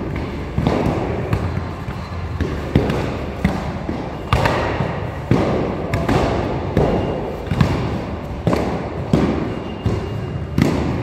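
Training weapons striking shields and one another in sword-and-shield sparring: a run of sharp knocks and thwacks, about one every three-quarters of a second, each echoing in a large stone hall.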